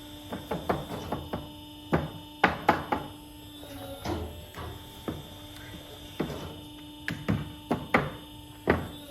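Irregular knocks and thuds, some in quick clusters of two or three, over a steady hum.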